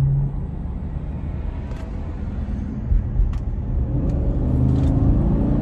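Truck engine and road noise heard from inside the cab while driving slowly: a steady low rumble that grows a little louder near the end.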